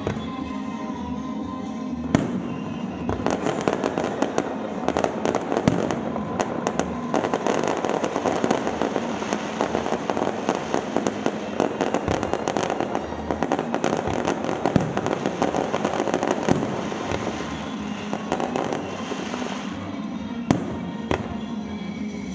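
Fireworks display going off in a fast barrage of bangs and crackles that starts about two seconds in and thins out over the last few seconds, with one last loud bang near the end. Music plays underneath.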